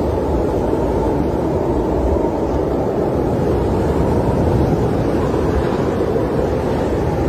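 Steady, low rumbling wind of a snowstorm, even throughout with no sudden changes.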